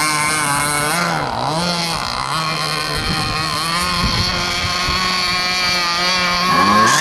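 Gasoline-engined RC hydroplane boat, a small two-stroke, running flat out across the water. Its engine note dips briefly twice early on as the throttle is eased, then climbs again near the end.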